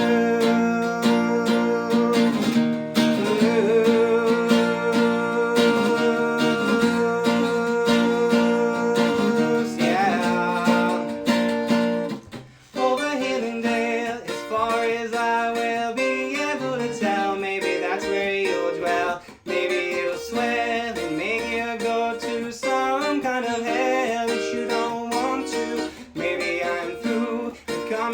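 Music: a plucked string instrument playing the song, with long held notes. The sound drops out briefly twice, about twelve and nineteen seconds in.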